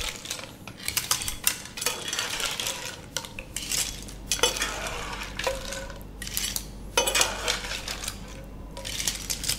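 Metal ladle scraping and clinking against a pan while mussels and clams are spooned into a copper serving pan, with shells clattering. The clinks and scrapes are short and irregular.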